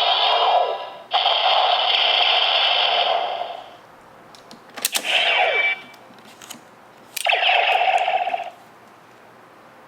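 Bandai DX Neo Decade Driver toy belt playing its electronic Final Attack Ride sound effects through its small speaker. A loud synthesized tone runs for about three seconds. About five seconds in comes a click followed by a falling sweep, and a second synthesized tone sounds for over a second a little after seven seconds.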